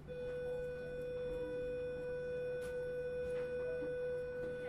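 A single steady pure electronic tone, held unchanged for almost five seconds with faint higher overtones: a sustained note in the drama's soundtrack score.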